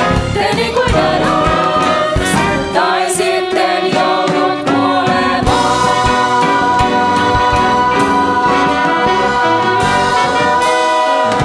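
Musical-theatre cast singing an ensemble number together with band accompaniment, building to one long held final chord in the second half.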